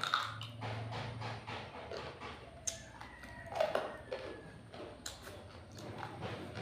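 A person eating: wet chewing and lip-smacking, with irregular sharp mouth clicks.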